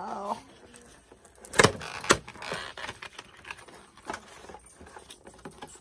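Cardboard-and-plastic doll box being handled and pulled open: crinkling and rustling of the packaging, with two sharp snaps about a second and a half in and a few lighter taps after.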